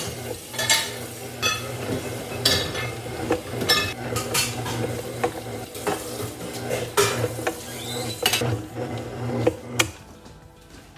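Electric stand mixer kneading bread dough in a stainless steel bowl: a steady motor hum with repeated knocks and clanks as the dough and hook beat against the metal bowl. The mixer stops near the end.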